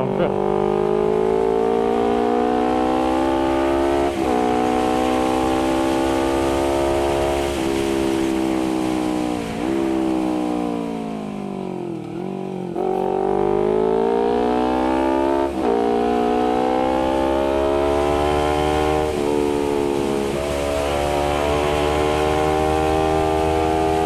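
Honda CBR250RR's parallel-twin engine through an aftermarket R9 GP SS exhaust, under way: it revs up and shifts up through the gears, with a short dip in pitch at each change. In the middle it slows with the pitch falling for a few seconds, then accelerates and shifts up through the gears again.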